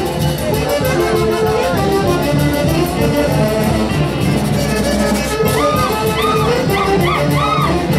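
Andean festival orchestra playing chonguinada dance music, violins and brass over a steady beat. About five and a half seconds in, a new short melodic phrase begins and repeats.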